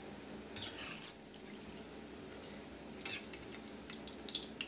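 Thai crispy omelette deep-frying in hot oil in a wok: a steady sizzle with two sharp crackles, about half a second in and about three seconds in.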